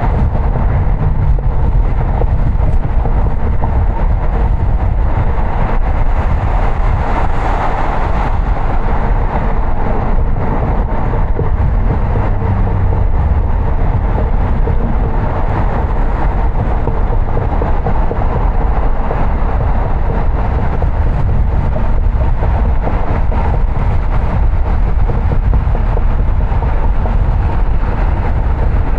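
A car being driven: steady road noise of tyres and engine, a constant low rumble with no breaks.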